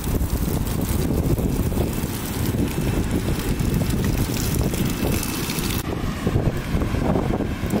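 Strong wind buffeting the microphone in a dense low rumble, over the hiss of an outdoor shower spraying water, which drops away about six seconds in.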